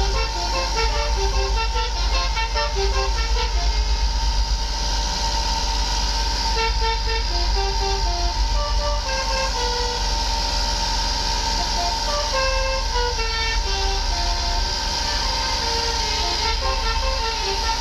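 Telolet multi-tone air horn playing a tune of short, quickly changing notes throughout, over the low rumble of a running engine.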